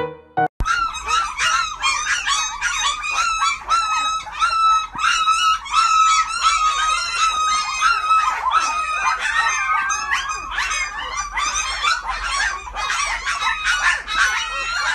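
A litter of newborn puppies squeaking and whining at their mother's belly while nursing, many high, overlapping calls without a break, starting about half a second in.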